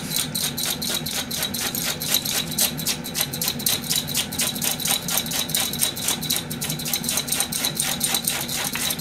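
Handheld cabbage slicer shredding a cabbage into fine strands, the cabbage pushed back and forth across the blade in quick, even strokes, about four to five a second.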